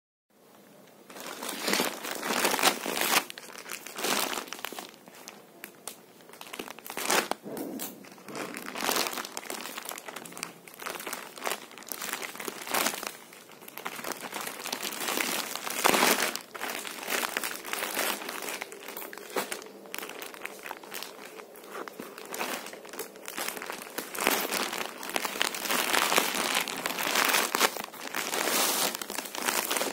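Plastic parcel packaging crinkling and rustling as hands unwrap and handle it, in an irregular run of rustles with louder moments throughout.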